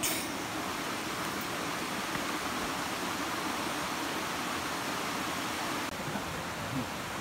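Steady rushing of a mountain stream, a constant even hiss of flowing water. There is a brief knock at the start and a slight drop in level about six seconds in.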